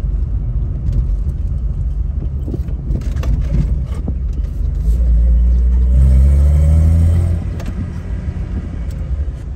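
1971 Datsun 240Z's numbers-matching L24 2.4-litre inline-six running while the car is driven. About halfway through, the engine pulls harder and its note rises for a couple of seconds, then drops back as the throttle eases.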